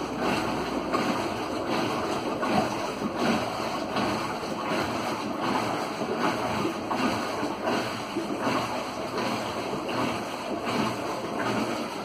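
Brastemp BWS15 top-loading washing machine running, with a steady rush and churn of water in the tub, after its faulty pressure switch was replaced.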